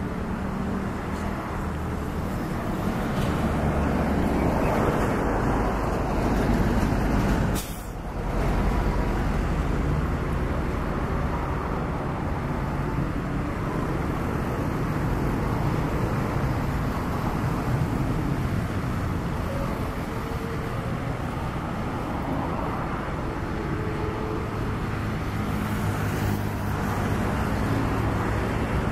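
Diesel locomotive at the head of a passenger train approaching, its engine a steady low drone over a broad rushing noise, broken briefly about eight seconds in.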